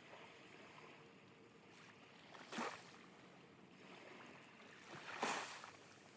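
Small Red Sea waves lapping at the shore: two short washes of water, about two and a half seconds apart, over a faint steady hiss of the sea.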